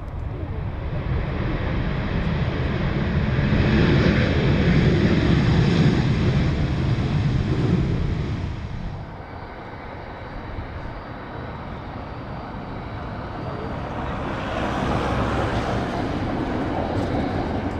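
Jet engines of a Boeing 737 on the runway, their roar building to a loud peak and dropping away about nine seconds in. A second Boeing 737 then touches down, and its engine noise swells again near the end.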